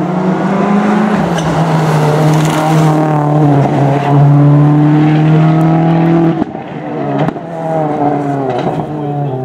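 Rally car engine at high revs on a stage, with a gear change about a second in. About six seconds in, the engine note drops sharply as the driver lifts, a sharp crack follows about a second later, and then the engine pulls hard again.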